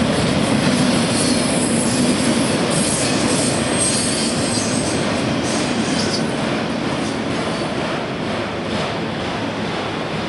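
Autorack freight cars rolling past on steel wheels and rails: a steady rumble with high-pitched wheel squeal in the first half, getting slowly quieter.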